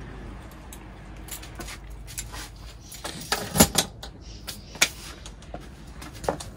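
Scattered clicks and knocks of things being handled at a shelf of plastic storage bins, with a cluster of sharper knocks just past halfway and another about five seconds in.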